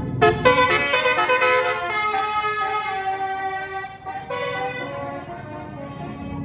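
Tour bus's Basuri telolet horn playing a melody: a run of quick short notes, then longer held notes, with a new note about four seconds in before it fades.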